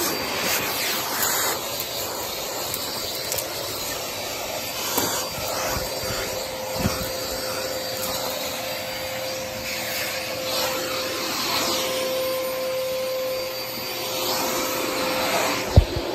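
Vacuum cleaner running steadily with a held whine as its nozzle is worked over a fabric sofa cushion. There are a few brief clicks along the way and a sharp knock near the end.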